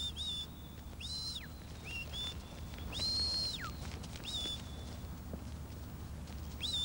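A shepherd whistling commands to his working sheepdog: a string of short high whistle notes, some sliding up or down at their ends, with one longer held note about three seconds in.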